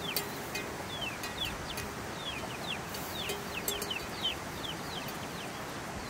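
Chickens calling: a steady stream of short, high, falling peeps, with a few lower clucking notes.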